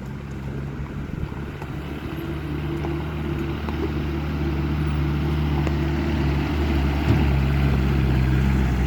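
Mitsubishi L200 pickup's engine pulling hard up a steep climb, a steady low drone at an even pitch that grows louder as the truck approaches.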